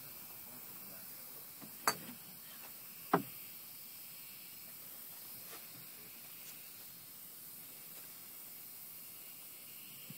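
Two sharp clicks or knocks, about a second and a quarter apart, over a steady faint hiss.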